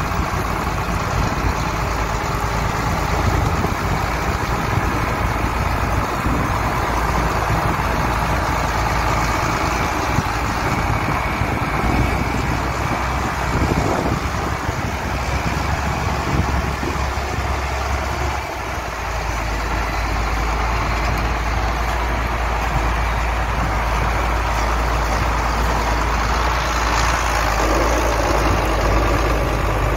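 Heavy farm tractor engines running steadily under load, with a change in the low engine note about two-thirds of the way through.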